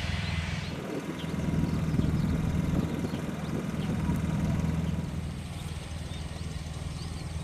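Airship's propeller engines running steadily on the ground before take-off, a low even hum that swells from about a second in and eases off after about five seconds. Faint high chirps, likely birds, sound over it.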